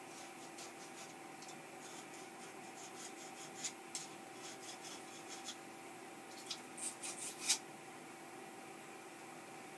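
Hand deburring tool scraping along the edges of a freshly milled slot in a cold-rolled steel jaw blank: light, repeated scraping strokes, with a few sharper scrapes about four seconds in and near seven seconds. A steady low hum runs underneath.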